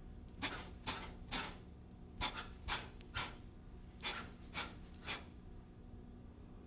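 Sharp, short exhales in three sets of three, about half a second apart, with a short pause between sets: forceful breathing paced with Tensegrity movements.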